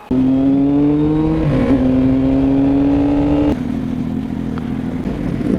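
Motorcycle engine accelerating hard, its pitch climbing steadily, with a brief break about one and a half seconds in as a gear changes. About three and a half seconds in the note drops off into a quieter, rougher running sound.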